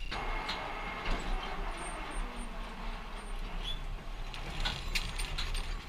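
Zipline trolley rolling along a steel cable: a steady whirring hiss over a low rumble, easing off in the second half.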